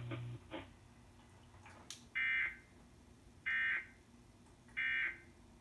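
Emergency Alert System end-of-message signal: three short, identical bursts of buzzy digital data tone, each about a third of a second long and about a second and a half apart. This is the coded "NNNN" burst sent three times to close an EAS alert.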